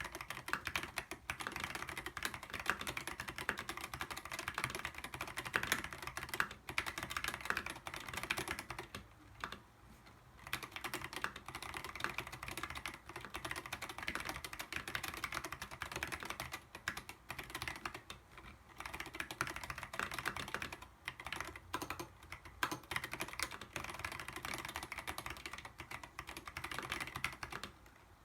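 Fast, continuous typing on a mechanical keyboard with unlubricated Zealios 62g tactile switches and dev/tty keycaps: a dense stream of keystroke clacks, broken by a few brief pauses, one about ten seconds in.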